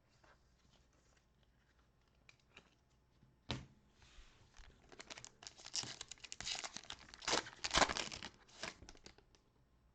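A Panini Prestige football card pack being torn open and its wrapper crinkled. A sharp rip comes about three and a half seconds in, followed by about five seconds of crackling and tearing, loudest near the end.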